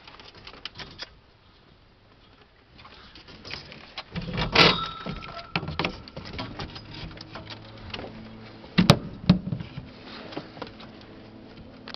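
Plastic bag crinkling and rustling in irregular bursts of sharp crackles as ferrets play in and around it, sparse at first, with the loudest bursts about four and a half and nine seconds in.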